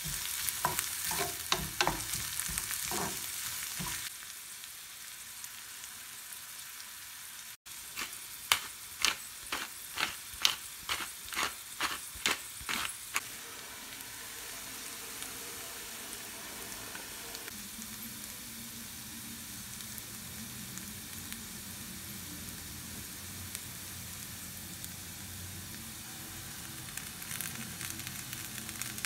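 Diced onion, carrot and green peas sizzling in oil in a nonstick frying pan, stirred with a wooden spatula in quick scraping strokes at the start. Then a steady sizzle, broken about a third of the way in by a quick run of about ten sharp knocks, roughly two a second.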